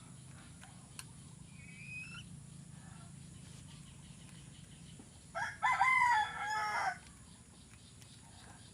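A rooster crowing once, a single call of about a second and a half starting about five and a half seconds in.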